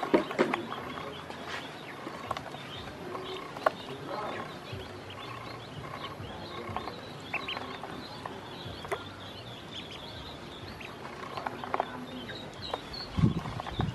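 A group of ducklings feeding and drinking in a plastic basin: scattered sharp taps of bills pecking feed off the plastic, with short high peeps. A louder muffled thump comes shortly before the end.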